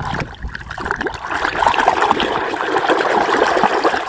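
Muddy water splashing and trickling in quick small splashes.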